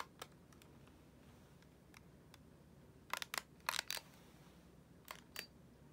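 Handling noise right at the microphone: a hand working a small plastic object close to the camera, giving a few light clicks, then a quick cluster of louder clicks and crinkles around the middle and two more clicks near the end.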